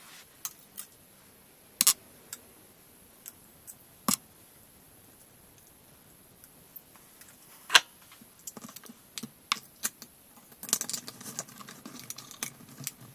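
CPU cooler and its small metal mounting screws being handled and fitted: scattered sharp clicks and knocks, the loudest about eight seconds in, then a quicker run of small clicks and rattles over the last couple of seconds.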